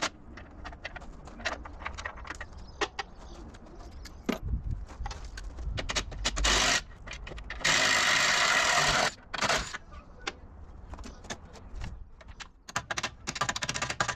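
Light metallic clicks and jangling, as of tools or metal parts being handled, with a steady hiss of about a second and a half near the middle.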